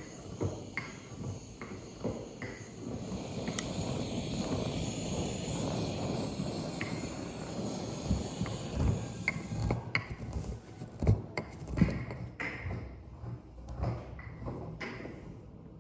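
Handheld butane gas torch burning with a steady hiss as its flame singes the skin of a plucked bird. The hiss starts a few seconds in and cuts off a little past the middle. It is set among scattered light clicks and a few sharp knocks.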